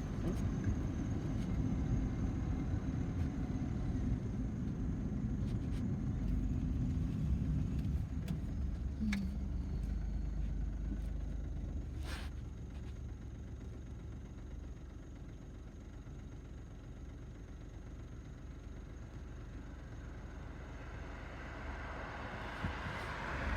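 Low vehicle rumble that fades for a while, then swells again near the end as something approaches.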